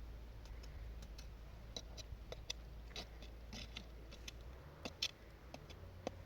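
Irregular light clicks and taps, over a dozen in a few seconds, over a low steady hum that fades about four and a half seconds in.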